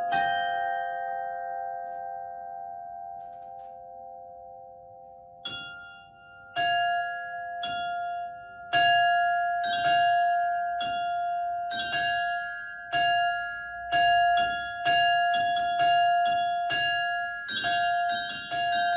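Russian Orthodox church bells ringing a peal (perezvon). One strike rings out and fades for about five seconds. Then strikes resume about five seconds in, roughly one a second and quickening toward the end, while a bell keeps ringing on underneath.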